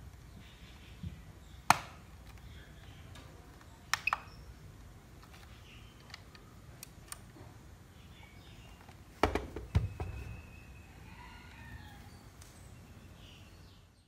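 Sharp clicks from handling a pistol-grip RC transmitter: one about two seconds in, a quick double click around four seconds, and a cluster near ten seconds, over a low steady hum.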